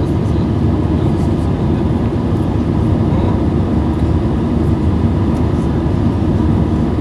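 Cabin noise inside an Airbus A320 climbing after takeoff: a steady, deep roar of jet engines and rushing air, with a faint steady hum on top.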